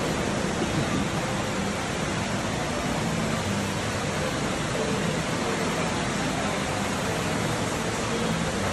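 Steady, even rushing noise of moving water along the boat ride's aquaculture tanks, with no breaks or sudden sounds.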